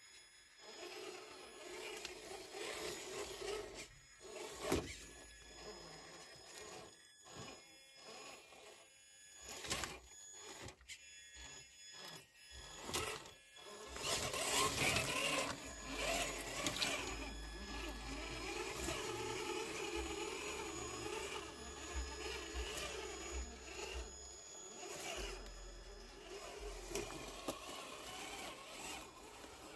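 Electric motor and gear drive of a Traxxas TRX-4 Bronco scale RC crawler whining as it crawls over rock. Scattered knocks and scrapes come from the tyres and chassis on stone, and a denser stretch of noise starts about halfway through.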